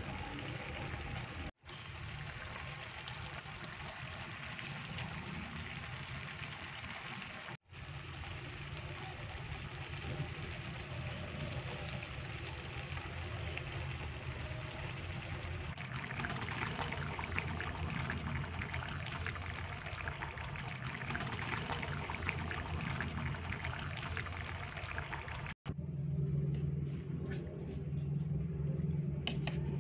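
Coconut-milk stew of jackfruit and shrimp simmering in a pan on the stove, a steady bubbling hiss broken by three short gaps. Near the end it gives way to a low steady hum.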